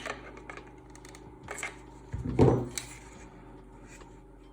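Hand tools and metal parts being handled: a few light clicks and taps, with one louder knock about two and a half seconds in.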